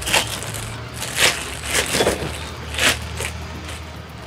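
Clear plastic bag of cashews crinkling as it is untied and opened by hand, in four loud rustles about a second apart, over a steady low hum.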